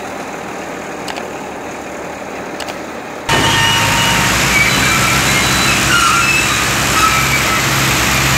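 A crane's diesel engine running steadily at a roadside truck recovery. It becomes much louder at a cut about three seconds in, with short high chirps over it.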